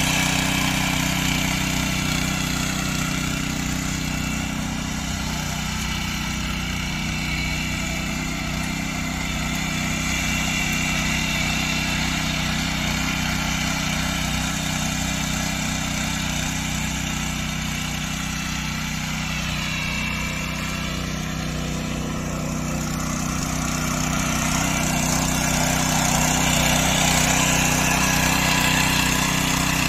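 Small engine of a power weeder running steadily under load as its rotary tines churn the soil. Its pitch dips briefly and recovers about two-thirds of the way through.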